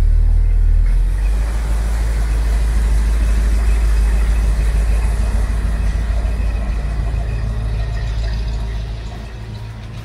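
1966 Chevrolet C30 dually truck's engine running at low speed as the truck drives past and away, a steady deep rumble that fades over the last couple of seconds.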